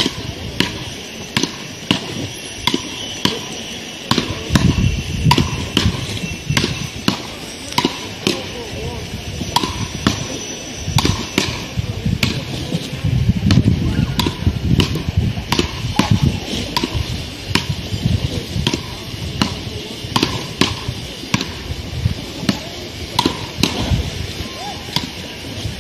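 Beach-racket paddles hitting a small ball back and forth in a long rally: sharp knocks about one to two a second.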